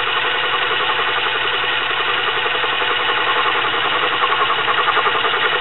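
Small metal lathe running steadily with a fast, even rattle, its chuck spinning while a light cut is taken on a shaft being turned down to size.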